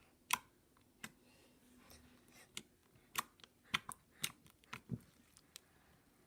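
Foam slime full of foam beads being squeezed and played with by hand close to the microphone for ASMR, giving irregular sharp pops and clicks, about ten in all.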